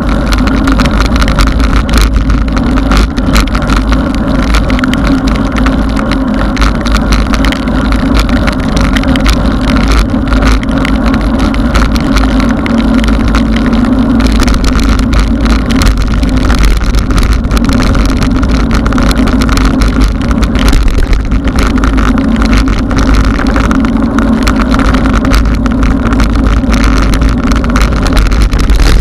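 Steady loud wind rush and low rumble on an action camera's microphone while riding a mountain bike along a wet paved road in the rain.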